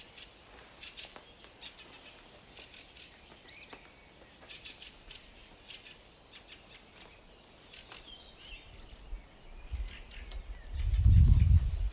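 Small birds chirping outdoors, with many short, high calls throughout. About ten seconds in, a loud low rumble swells for about two seconds and is the loudest sound.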